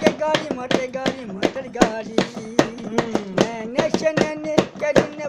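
A man singing in long held notes, with sharp taps keeping a quick beat of about four a second under the voice.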